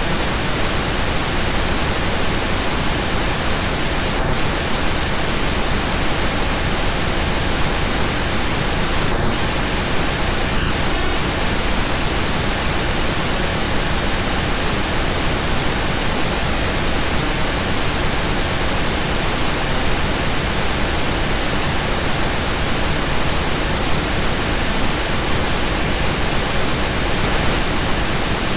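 A steady hiss of synthesized noise, even from low to high pitches. Faint high-pitched tones come and go every second or two above it. It is a relaxation noise track of the sort played to ease headaches and help sleep.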